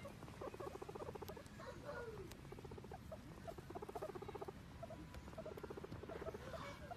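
Guinea pigs calling softly: short runs of rapid pulsed purring calls, repeated several times, with brief squeaks in between.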